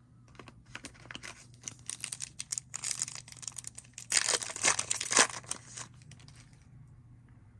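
Foil trading-card pack wrapper being torn open and crinkled, with cards handled; a crackly tearing and rustling, loudest about four to five seconds in.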